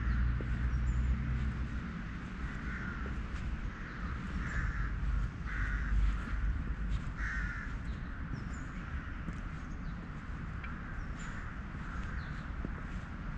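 Crows cawing, a series of short harsh calls, clearest in the first half and fainter near the end, over a low steady rumble.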